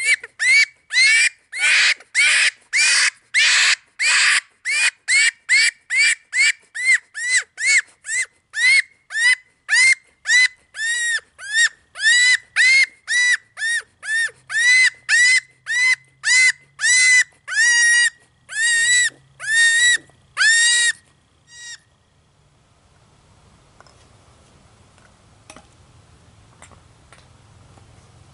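Primos Dogg Catcher electronic predator call playing a loud animal distress call: short squealing cries, about two a second, each rising and falling in pitch. The cries stop abruptly about three-quarters of the way through.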